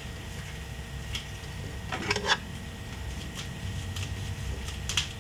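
Plastic shrink wrap being peeled and torn off a DVD case: scattered short crinkles and rips, the loudest a little over two seconds in, over a steady low hum.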